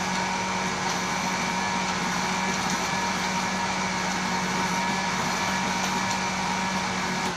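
Electric countertop blender motor running steadily on its lowest speed setting, blending ice cubes into a slush, a constant whirring hum.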